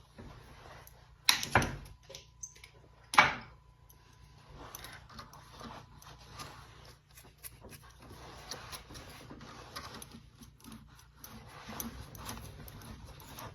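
Metal tools and parts being handled at a workbench: three sharp clanks in the first few seconds, the first pair leaving a faint ring, then a run of small clicks, rattles and scrapes.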